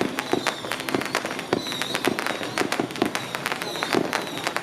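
Strings of firecrackers going off: a dense, irregular crackle of sharp bangs, several a second, without a break.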